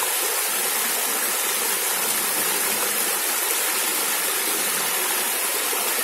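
Waterfall running low, its thin streams splashing down stepped rock ledges into a pool: a steady, even rush of falling water.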